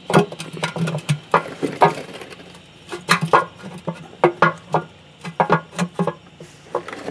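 Irregular light knocks and clicks of a metal oil pan being handled and pushed up into position against the underside of the engine.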